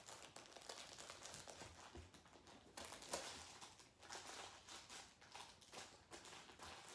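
Faint, irregular crinkling and rustling of a plush cauldron crinkle toy as a small dog digs into it, nosing for a hidden treat.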